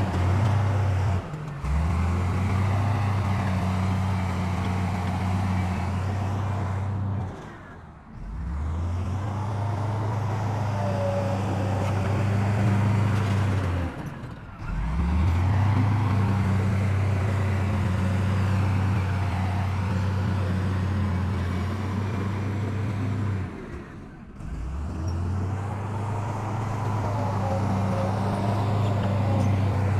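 Heavy diesel engine of earthmoving machinery running steadily with a low hum. It drops away briefly a few times and comes back each time.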